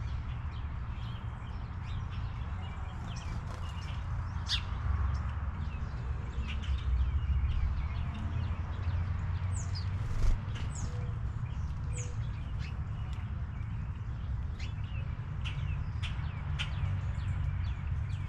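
Birds chirping: many short, high calls scattered throughout, a few quick falling chirps about ten seconds in, over a steady low rumble, with one brief thump around the same point.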